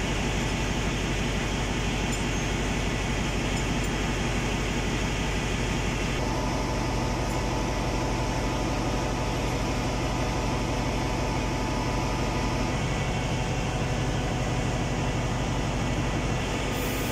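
Steady drone of a ship's engine-room machinery, with a constant hum and fan-like noise, its character shifting slightly about six and about thirteen seconds in. The main engine is stopped for the exhaust-valve overhaul, so the drone comes from the running auxiliary machinery and ventilation.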